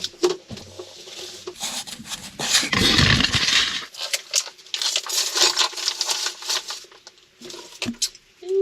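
Rummaging through a storage box of stored gear: objects are knocked and scraped, with scattered sharp clicks and two longer stretches of rustling and scraping.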